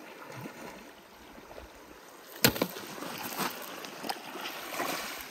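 Small waves lapping on a pebble beach, a steady wash of water. A sharp click cuts through about halfway, followed by a few lighter clicks.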